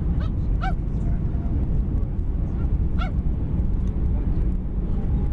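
Steady low rumble of jet engines and rushing air heard inside an airliner cabin as the plane comes in low over the runway to land. Brief high-pitched squeaks cut through it twice near the start and once about three seconds in.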